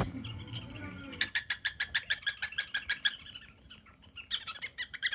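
Pet cockatiel making a rapid, even run of sharp squeaks, about eight a second for about two seconds, then softer irregular chirps near the end. These are the unusual squeaky mimic noises this bird has picked up, not normal cockatiel calls.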